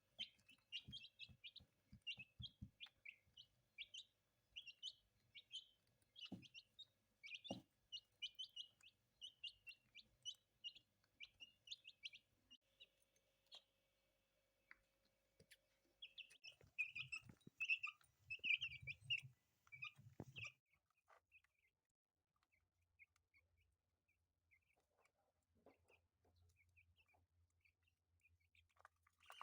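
Chicks peeping: rapid short high chirps for the first dozen seconds, a louder flurry of peeps with low bumps a little past the middle, then only scattered faint peeps.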